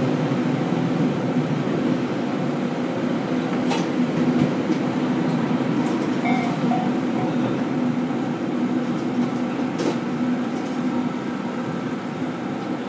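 Interior running sound of a JR West KiHa 40 diesel railcar heard from the seat directly above its underfloor diesel engine: a steady engine drone mixed with wheel and rail noise. Two sharp clicks come about four and ten seconds in.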